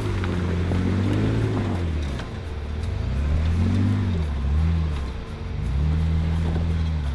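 Jeep engine revving up and dropping back several times, its pitch rising and falling in uneven swells.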